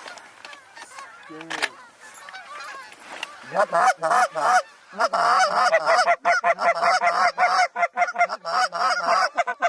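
Canada goose honking and clucking: a few scattered honks, then from about three and a half seconds in a loud, rapid run of honks and clucks, several a second.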